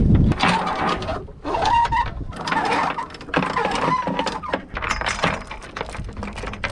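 Anchor chain rattling and clanking as it pays out over a sailboat's bow roller, metal links striking the metal fitting in three runs with short pauses between.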